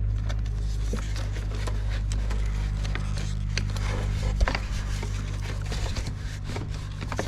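Scattered light clicks and taps of hand tools and metal parts being handled while fitting an ATV steering shaft, with one sharper knock about four and a half seconds in, over a steady low hum.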